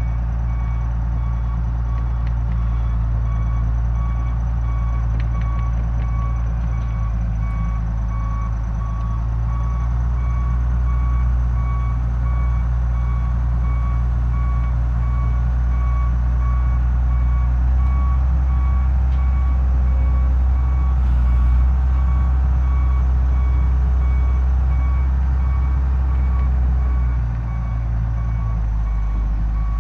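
Wheel loader's diesel engine running under load, with its backup alarm beeping at an even pace throughout. The engine note drops near the end.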